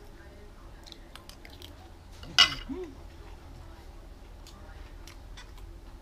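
A metal spoon clinking sharply once against a ceramic plate as it is set down, about halfway through, followed by a brief vocal sound; light clicks of cutlery and eating come and go.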